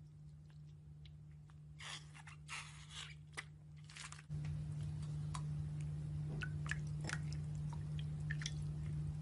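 Slime being squeezed and poked by hand: a few crunchy crackling bursts, then small sticky pops and clicks. A steady low hum comes in about four seconds in.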